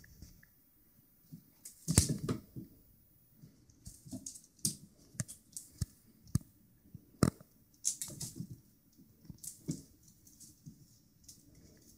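Irregular light clicks, taps and scuffs of a kitten batting at and pouncing on a feather wand toy on a hardwood floor, the loudest about two seconds in.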